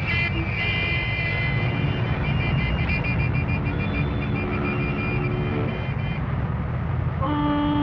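Port-city street noise: a steady rumble of traffic with several vehicle horns tooting over it. Near the end, a long steady blast from a deeper horn begins, typical of a ship's horn.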